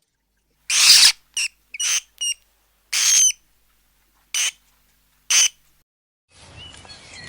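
An animal giving seven short, harsh calls over about five seconds, with dead silence between them.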